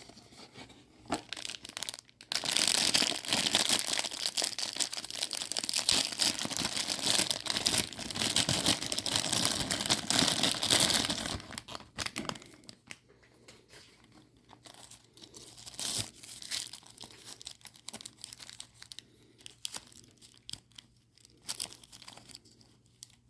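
Crinkly packaging of a mystery bag charm being handled and torn open by hand: a dense stretch of crinkling and tearing from about two seconds in to about twelve seconds, then scattered lighter crinkles.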